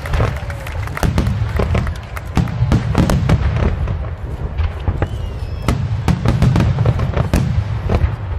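Aerial fireworks shells bursting in quick succession: several sharp bangs a second over a continuous low rumble of booms.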